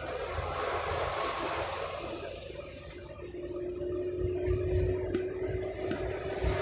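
Road and engine noise inside a moving vehicle's cabin: a steady low rumble, with a faint steady hum coming in about three seconds in.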